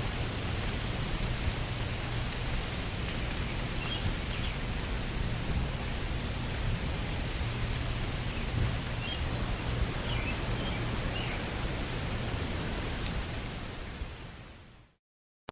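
Wind blowing through trees: a steady rush of moving leaves and branches with a low rumble, and a few faint high chirps. It fades out to silence near the end.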